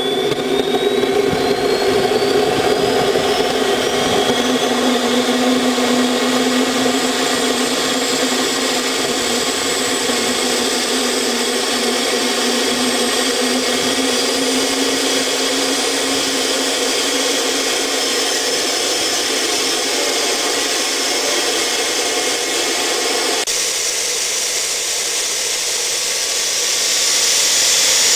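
Homemade turbojet built from a Warner-Ishi IHI turbocharger, running on gaseous propane: a loud continuous rush with a high turbine whine that climbs in pitch over the first few seconds. Near the end the whine and hiss grow louder as the microphone comes up close to the compressor inlet.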